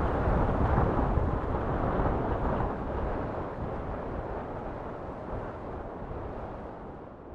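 Wind rumbling on the microphone, a steady low rumble that fades out gradually through the second half.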